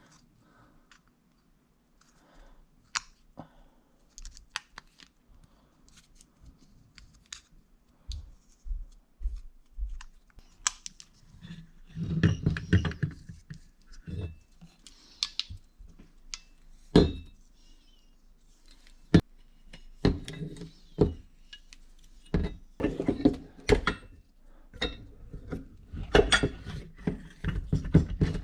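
Hands working metal gas pipe fittings onto a furnace gas valve: irregular clicks, knocks and light metallic clinks as thread-sealing tape is wrapped on and the fittings are handled and threaded. The handling is busier about halfway through and again near the end.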